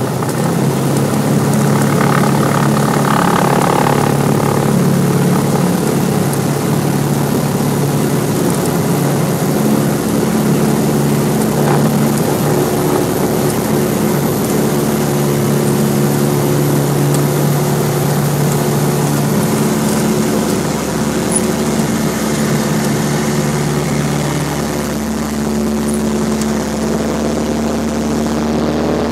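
Light propeller airplane's engine running steadily on the takeoff, a loud continuous drone whose pitch changes only slightly.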